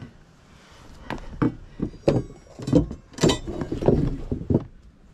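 Irregular wooden knocks and clatter from deck demolition, as a steel pry bar and loose boards are handled over the bare joists. There are about a dozen hits, starting about a second in, with a brief metallic ring among them.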